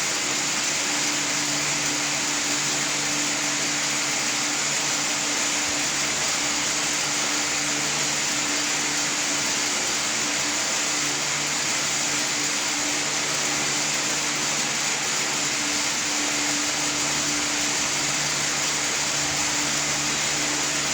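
Steady machine noise: an even hiss with a low hum beneath it, unchanging throughout.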